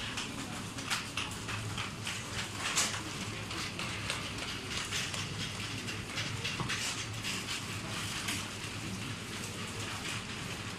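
Supermarket background noise: a steady low hum with dense, irregular crackling and rustling on top, a little louder about a second and three seconds in.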